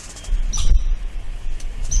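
Red squirrel giving short high-pitched chirps, the loudest just over half a second in, over a low rumble on the microphone.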